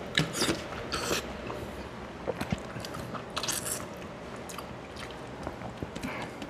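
A man chewing and eating rice and fish curry by hand, close to the microphone: wet mouth sounds with scattered short clicks.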